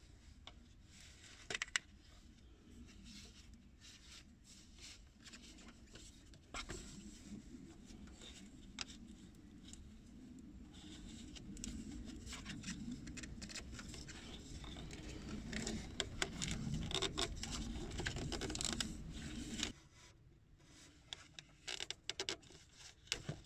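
Gloved hands working on diesel injector return-hose fittings in a van's engine bay: scattered clicks and scrapes of plastic and rubber, with a low rustling rumble that starts a few seconds in and cuts off suddenly a few seconds before the end, then a few sharper clicks.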